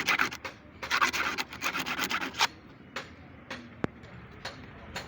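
Rapid back-and-forth scraping or rubbing strokes on a hard surface, busiest through the first two and a half seconds and then thinning out, with a sharp click about four seconds in.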